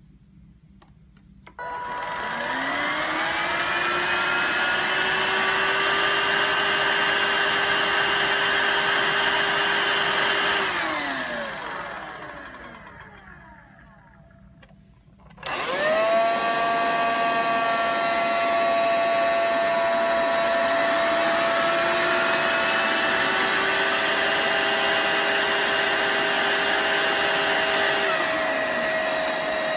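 Two vacuum cleaners run one after the other for a noise comparison: a Dibea F6 cordless stick vacuum and another vacuum cleaner. Each is switched on with a motor whine rising to a steady high-pitched running note, then switched off and winding down. The second machine starts more abruptly and carries a stronger single steady tone.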